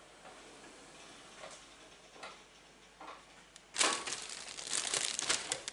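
Kraft paper bag being handled: a few faint light clicks and rustles, then about four seconds in a sudden loud run of crinkling and rustling as the bag is lifted and opened.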